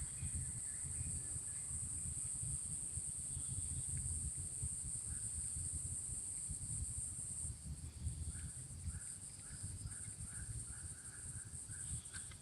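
Steady high-pitched insect drone over a low rumble, with a run of short repeated chirps, about three a second, in the last few seconds.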